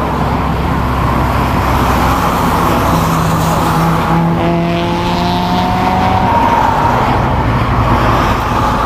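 Cars driving at highway speed: steady engine and tyre rumble, with an engine note that comes in about three seconds in, climbs slowly in pitch as a car accelerates, and fades out a few seconds later.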